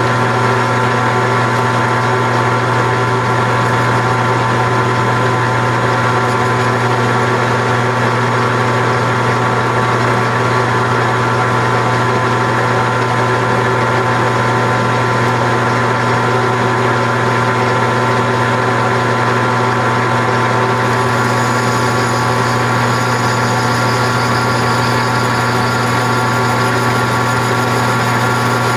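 Grizzly G4003G gear-head lathe running steadily under power, a loud hum with a steady whine. About three-quarters of the way in, a high-pitched hiss joins as the tool bites into the spinning backing plate for a light skim facing cut.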